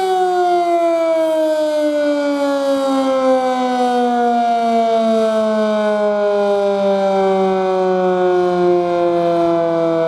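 Sentry 10V outdoor warning siren winding down at the end of its short alert test, its loud wail falling steadily in pitch.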